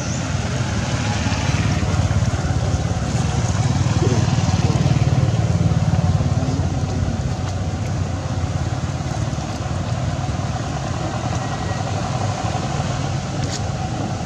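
A motor vehicle engine running steadily with a low rumble, growing louder a couple of seconds in and easing off again after about seven seconds.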